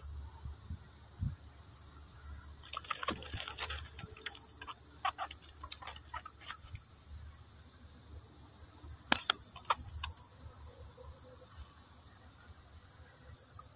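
Steady, high-pitched chorus of insects chirring without a break. A few short clicks and rustles sound over it, a cluster about three seconds in and one sharp click about nine seconds in.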